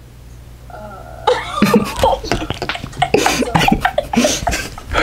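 Laughter in irregular breathy bursts with short voiced bits, starting after a brief lull about a second in.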